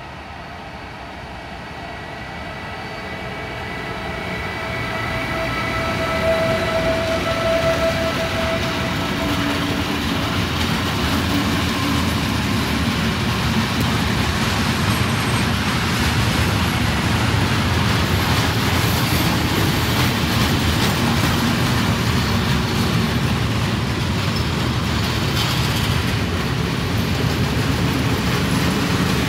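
Siemens Vectron electric locomotive approaching with a freight train, growing louder over the first six seconds, with a steady whine as it passes. Then comes the continuous rolling rumble and clatter of a long line of open freight wagons going by.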